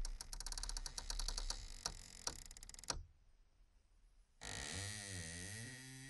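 Creaking door hinge: a run of clicks that slows and stops about three seconds in, then, after a short silence, a long creak that wavers up and down in pitch.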